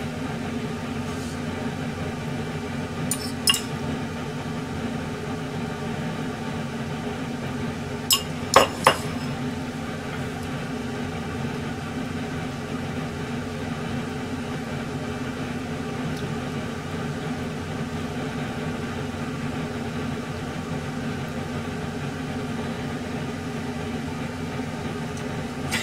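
Tableware clinking, once about three seconds in and then three quick clinks about eight seconds in, over a steady low hum.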